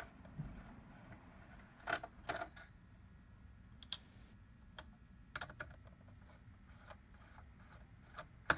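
Light, scattered clicks and taps of a small Phillips screwdriver and tiny screws against a DVR's metal CableCARD cage as the screws are backed out by hand, a handful of sharp ticks spaced a second or more apart.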